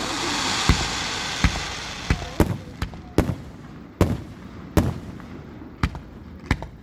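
Aerial fireworks going off: a hissing crackle for about the first two seconds, then a quick string of sharp bangs, roughly one every half to one second.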